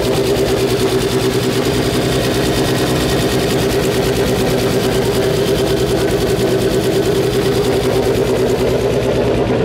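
Turbocharged drift-car engine idling steadily with the bonnet open, a loud even running note with no revving.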